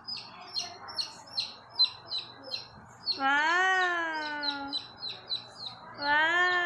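A baby chick peeping over and over, short falling peeps at about three a second. Twice a child's voice cuts in with a long drawn-out sound, louder than the peeps.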